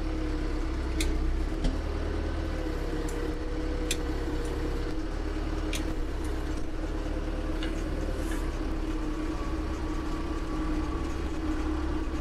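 Branson compact tractor's diesel engine running steadily under load as its front-loader grapple lifts and carries a stump, with a steady whine over a low rumble and a few light knocks.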